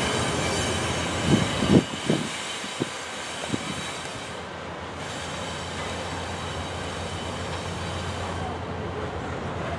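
Double-stack intermodal container freight train rolling past, a steady rumble with a thin high wheel squeal that fades out about four to five seconds in. A few sharp thumps stand out in the first few seconds.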